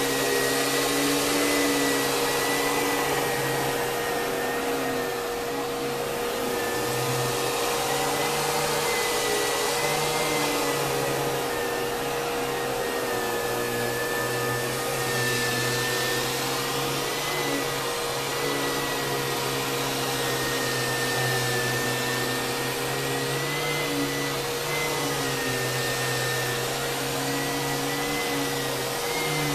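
2002 Kenmore Progressive canister vacuum cleaner with a Lamb electric motor, running continuously: a steady motor whine and airflow hiss, with a higher tone that wavers slightly up and down in pitch.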